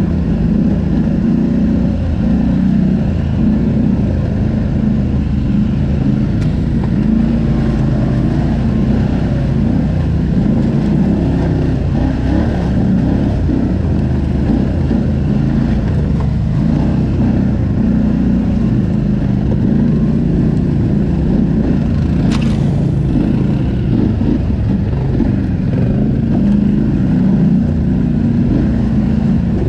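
ATV engine running steadily under way, a continuous low drone with small rises and falls in pitch. A single brief sharp click about three-quarters of the way through.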